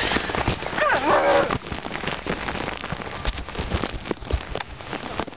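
Water pattering on a surface like rain, a dense crackling patter.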